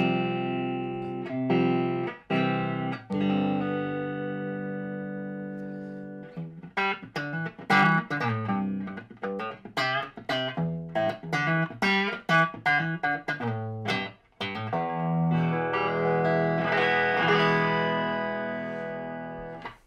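Electric guitar playing: an Encore Stratocaster refitted with new pickups and a new wiring loom. It rings out sustained chords for the first few seconds, then plays quick single picked notes, and finishes on a long chord that fades away.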